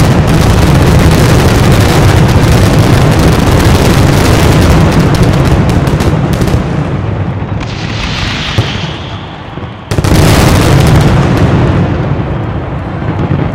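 Fireworks barrage: a dense, unbroken roll of shell bursts and bangs that thins out after about six seconds. One last loud salvo comes about ten seconds in and dies away.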